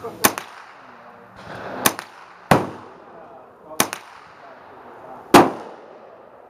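Shots from a Smith & Wesson M&P 15-22, a semi-automatic .22 LR rifle, fired one at a time. There are five sharp cracks, spaced about half a second to a second and a half apart, and the loudest comes about five seconds in.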